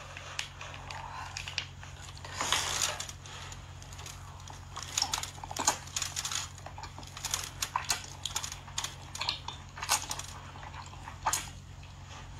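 Close-miked eating: spicy chili-coated noodles being slurped and chewed, a run of wet mouth clicks, smacks and crunches, under a steady low hum.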